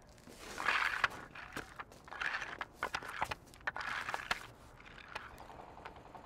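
Pilgrims prostrating on an asphalt road: a series of short scrapes and sharp knocks of hands and wooden hand boards on the road, with footsteps. These fade about four and a half seconds in to a faint steady hiss.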